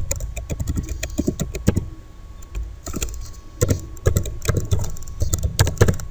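Typing on a computer keyboard: quick, irregular runs of keystrokes with a brief pause a little after two seconds in.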